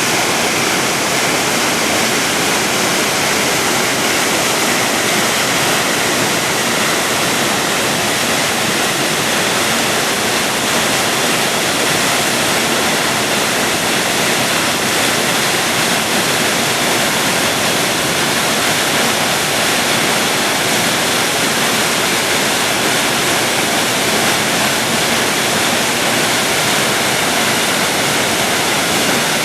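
A waterfall's water falling and splashing, a loud, steady rush with no let-up.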